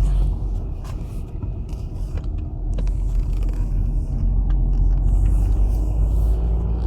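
Volkswagen Passat 2.0 turbo diesel driving on a test drive, a steady low engine and road rumble.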